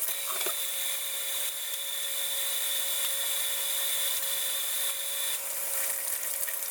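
Kitchen or bathroom tap running steadily into a sink for hand-washing, a constant hiss of water with a faint high whistle that drops out about five seconds in.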